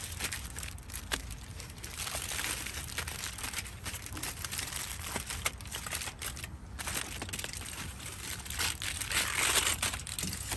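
Aluminium foil crinkling and crumpling as hands fold and crimp it into a closed packet, in quick irregular crackles that grow louder near the end.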